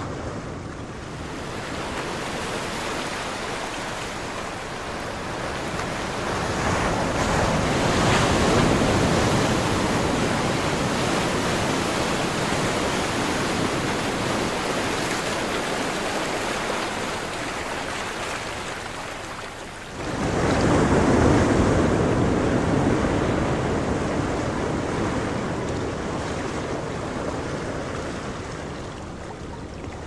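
Ocean surf: heavy waves breaking in a continuous rushing wash. It swells up about 8 seconds in, dips, then a sudden louder crash comes about 20 seconds in and slowly eases off toward the end.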